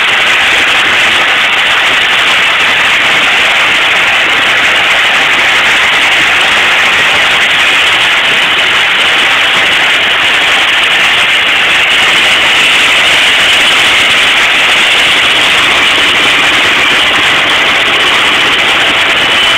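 Ursus C-360 tractor's four-cylinder diesel running loud and steady under load close by, mixed with a second tractor and a forage harvester working.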